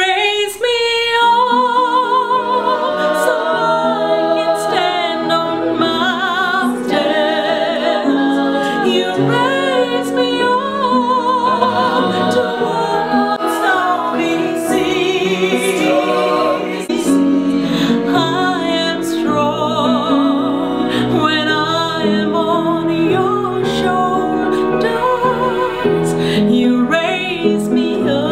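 Small choir of mostly women's voices singing a song together in harmony, with wide vibrato on the held notes.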